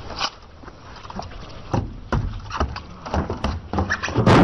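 Scattered light knocks and crunches as a person moves across snow, then a loud crash near the end as they slip and fall.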